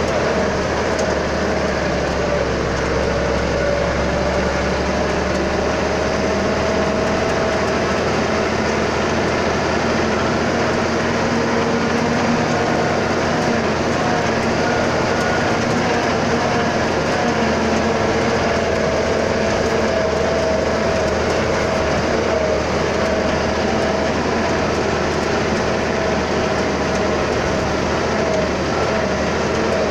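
Truck engine running steadily while driving, heard from inside the cab, its note drifting slightly in pitch with no breaks.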